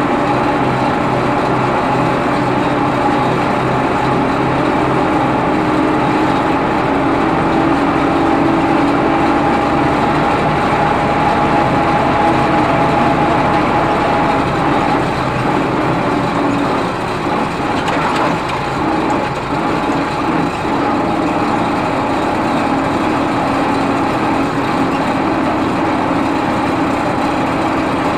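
Ford 3600 tractor engine running steadily as the tractor drives along, heard from the driver's seat. A little past halfway the engine note drops slightly and the loudness dips briefly before it settles again.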